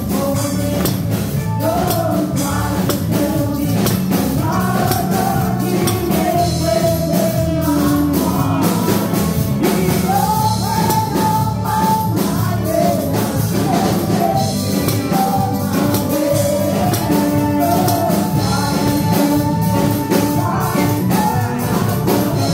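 Gospel music: a singing voice carrying the melody over steady rhythmic percussion.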